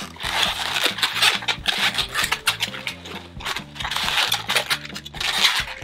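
Inflated latex 260 modelling balloons squeaking and rubbing against each other as a leg seam is twisted into a pinch twist, over background music with a steady stepping bass line.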